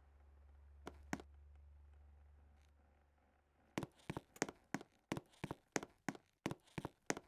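Footsteps on a hard floor, sharp heel-and-toe clicks about three a second, starting about four seconds in. A low steady hum stops at the same moment.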